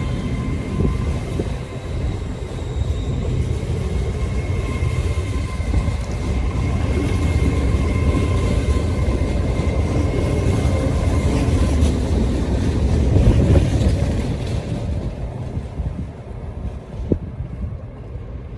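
A nine-car Class 800 train pulling out of the station: a heavy rumble with a steady whine above it. The rumble swells about two-thirds of the way through, then fades away near the end.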